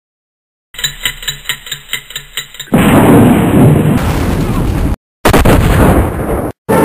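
Dubbed explosion sound effect for a Lego soda machine blowing up. A run of about ten quick ticks, about five a second, leads into a loud blast with a long rumble. The rumble cuts off abruptly twice.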